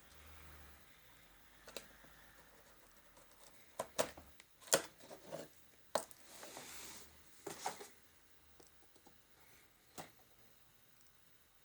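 Scattered clicks and knocks of a plastic electric kettle being handled, bunched in the middle, with a brief hiss about six seconds in.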